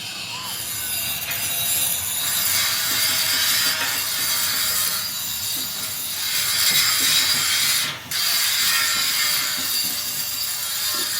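Steady harsh scraping noise that breaks off briefly about eight seconds in.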